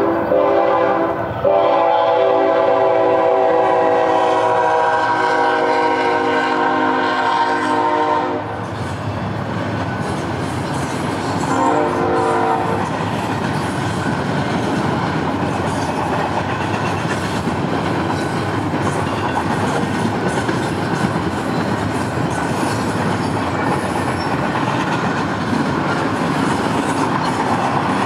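Freight locomotive horn sounding at a grade crossing: a brief blast, then a long one of about seven seconds, and a short blast near 12 seconds. After that, a double-stack container freight train rolls steadily past with wheel rumble and clickety-clack.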